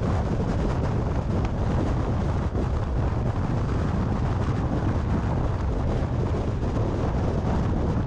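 Strong wind rushing over the microphone of a camera mounted on a car travelling at about 90 km/h, mixed with road noise in a steady low rumble.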